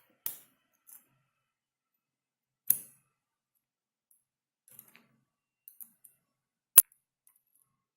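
A few separate sharp metallic clicks and taps as the small pins and tools of an ISEO euro dimple lock cylinder are handled while it is taken apart. The sharpest click comes near the end.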